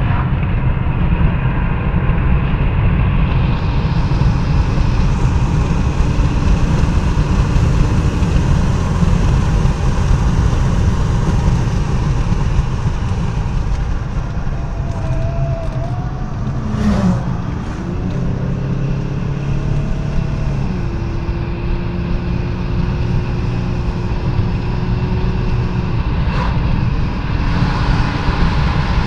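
Car cabin noise at speed: a steady low road-and-engine rumble, with the engine note shifting and stepping in pitch a little past the middle and a sharp click around then. Near the end the noise turns brighter as the car enters a road tunnel.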